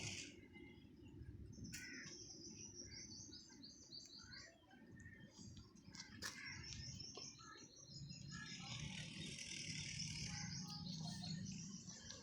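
Small birds chirping: quick runs of short, high notes, with denser chatter in the second half, over a low steady background hum.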